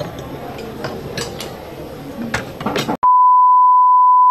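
Dining-table sounds with scattered clicks and clinks of dishes and cutlery. About three seconds in these cut off abruptly, and a loud, steady test-tone beep at one pitch begins, the reference tone that goes with TV colour bars.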